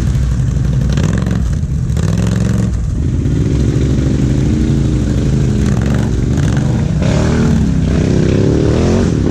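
Can-Am Outlander XMR 1000's V-twin engine revving up and down under load as the quad climbs out of a rutted creek bed, over the steady running of an idling ATV close by.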